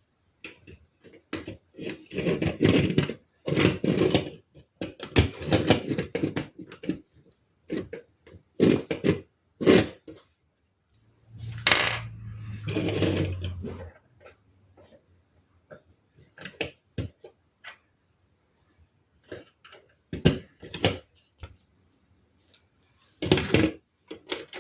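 Loose plastic LEGO Technic pieces clattering and clicking in irregular bursts, with sharp single clicks between. Near the middle there is a longer burst with a low hum under it.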